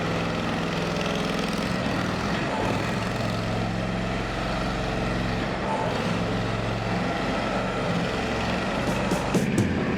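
The 23 HP gasoline engine of an AGT QK30R mini excavator running steadily.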